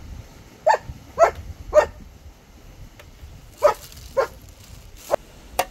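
A dog barking: three short barks, a pause of about two seconds, then two more, followed by two sharp clicks near the end.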